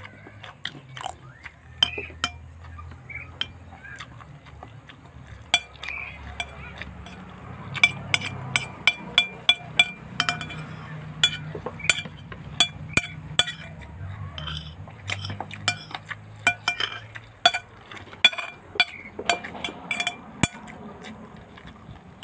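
Close-up eating sounds of a person eating fried rice by hand: chewing with many quick, sharp clicks, densest from about 8 to 18 seconds in, and clinks against a plate.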